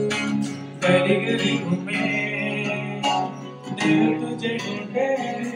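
Live acoustic guitar being strummed while a man sings into a microphone.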